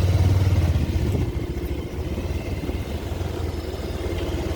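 Motorcycle engine running at a low, steady speed with an even pulsing beat, a little louder in the first second.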